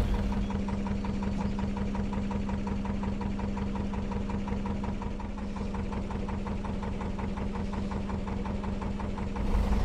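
Narrowboat's inboard diesel engine running steadily while cruising, a low even hum with a regular rapid beat.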